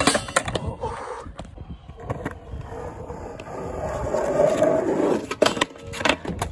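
Skateboard wheels rolling on concrete, the rolling growing louder, then several sharp clacks of the board hitting the ground about five to six seconds in as the trick is bailed and the board kicks away.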